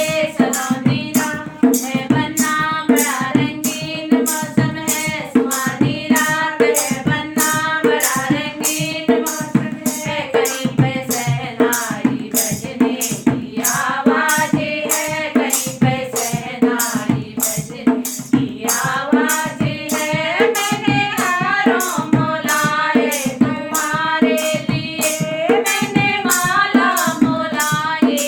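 Hindi banna-banni wedding folk song: a melody sung over a steady drum beat of about two strokes a second, with jingling percussion.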